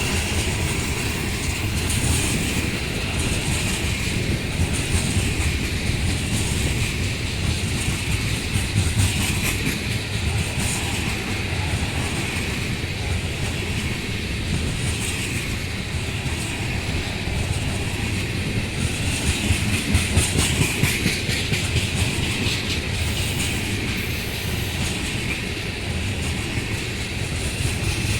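Freight cars of a heavy chemical train rolling past steadily on the rails, a continuous rumble of wheels on track.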